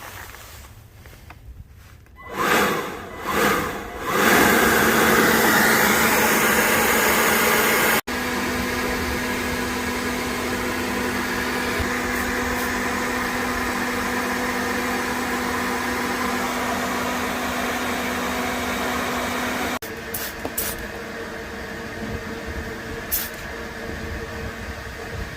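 A vacuum-cleaner-like motor with rushing air, swelling twice as it starts and then running steadily.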